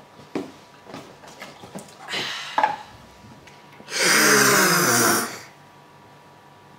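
A person's loud, rough vocal noise lasting about a second and a half, its pitch falling, after a few faint clicks and a short vocal sound about two seconds in.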